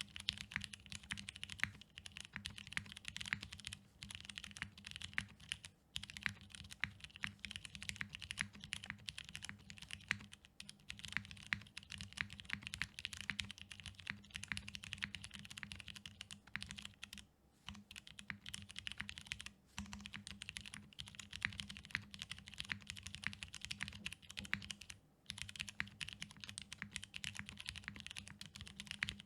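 Fast, continuous typing on a top-mount custom mechanical keyboard with an aluminium plate, lubed Cherry MX Brown tactile switches, full foam and GMK keycaps, with a few brief pauses.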